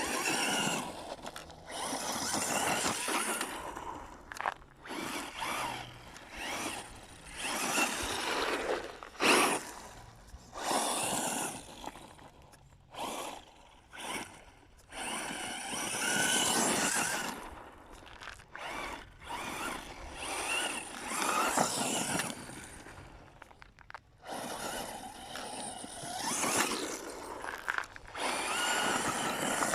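Electric RC buggy driving on a dirt track in repeated bursts of throttle, its motor whining up and down. There are about a dozen bursts of one to three seconds each, with short lulls between.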